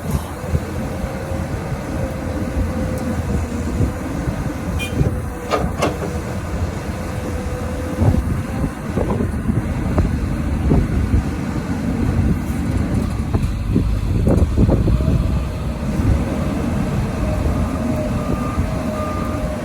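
XCMG XE215C hydraulic excavator working: its diesel engine and hydraulics make a steady low rumble with a whine over it, and that whine rises slightly near the end. Several knocks come through, a few seconds apart.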